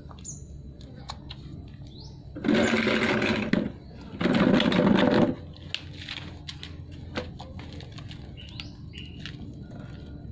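Puppies suckling at their mother's teats, with faint wet smacks and small clicks, and short high bird chirps now and then. A loud, steady buzzing noise of an unidentified source comes in twice a little before halfway, each burst lasting about a second.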